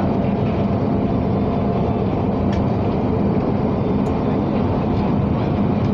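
London Underground train running at speed, heard from inside the carriage: a steady rumble of wheels on rail with an even hum and a few faint clicks.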